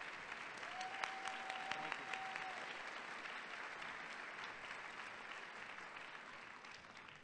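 Audience applauding: many hands clapping, dying away near the end. About a second in, a steady tone is held for about a second and a half over the clapping.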